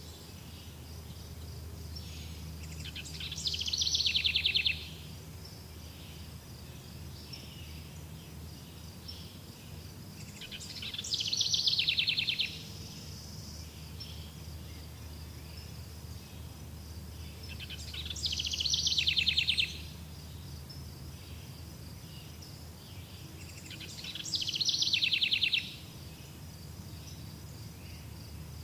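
Outdoor nature ambience: steady high insect chirring over a low hum, with a loud, rapid animal trill that swells and stops abruptly four times, about every seven seconds.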